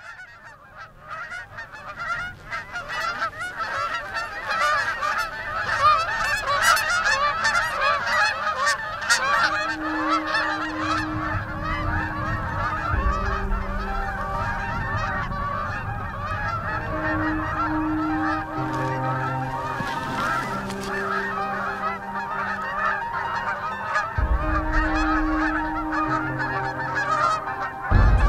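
A large flock of Canada geese honking, many birds calling over one another as the flock circles in. The calling swells over the first few seconds and then stays dense and loud.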